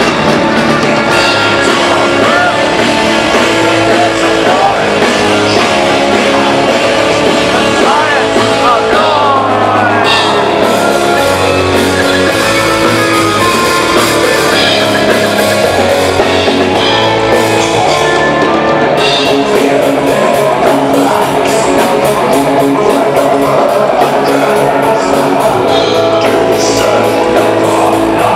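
Melodic death metal band playing live at full volume: distorted electric guitars, bass guitar, drum kit and keyboards, heard as a loud live concert recording.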